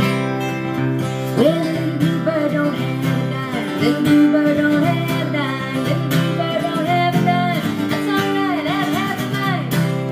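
Strummed acoustic guitar with a woman singing over it; her voice comes in about one and a half seconds in and stops just before the end while the guitar carries on.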